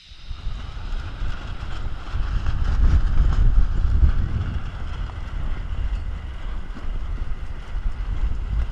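Strong wind buffeting a camera microphone on an Optimist dinghy sailing in high winds, a loud, gusting rumble with a hiss of rushing water over it. It is strongest about three to four seconds in.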